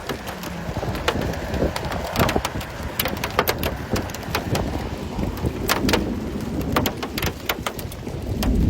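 Pea-sized hailstones pattering on hard surfaces: many sharp irregular ticks and taps over a steady hiss of falling hail and rain, with a low rumble underneath.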